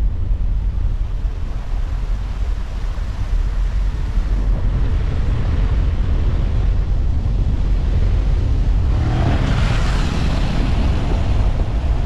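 Wind buffeting the microphone: a steady low rumble, with a louder rush of noise about nine seconds in.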